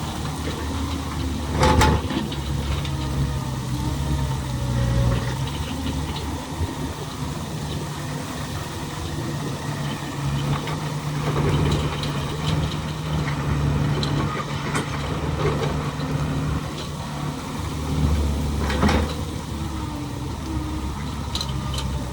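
Excavator engine running steadily at work, with two loud metallic knocks, one about two seconds in and one near the end, and a few lighter clanks between.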